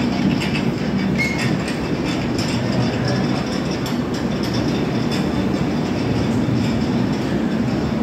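Rajdhani Express LHB passenger coaches rolling slowly out of the station: a steady rumble of wheels on rail with light, irregular clicks.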